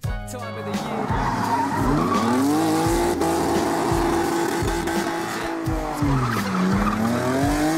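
Nissan Skyline drift car's engine held high in the revs while the rear tyres spin and squeal in a smoky donut. The revs dip about six and a half seconds in and climb straight back up.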